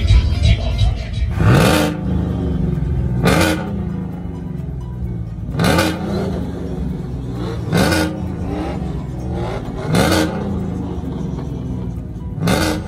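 Music with a stepping bass line and a sharp hit with a quick rising sweep that repeats about every two seconds.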